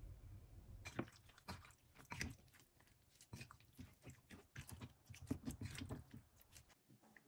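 Wooden spoon stirring diced raw chicken with cornflour and marinade in a ceramic bowl: irregular wet squishing with light clicks, starting about a second in and stopping shortly before the end.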